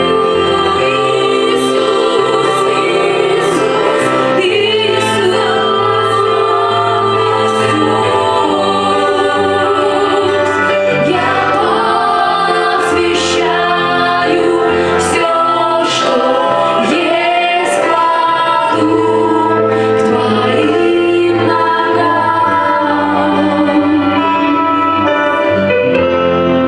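Christian worship song: voices singing a slow melody over sustained instrumental accompaniment with a steady bass line.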